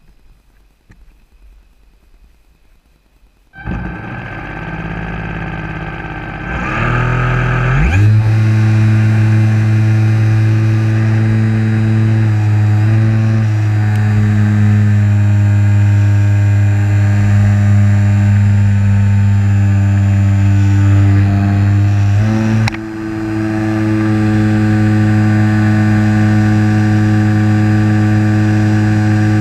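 Electric motor and propeller of a Hobbyzone Super Cub LP RC plane, heard from a camera mounted on the plane: it starts about three and a half seconds in, spins up with a rising whine over a few seconds, then runs steadily at high throttle, dipping briefly about two-thirds of the way through before picking up again.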